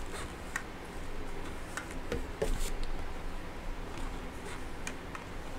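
A roller rolling out a slab of clay on a marble tile between paint-stick guides, with a faint low rumble and scattered light clicks and taps as the roller and hands touch the tile and sticks.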